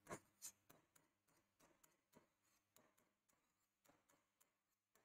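Faint taps and scratches of a marker writing numbers on a whiteboard: a string of short, irregular clicks.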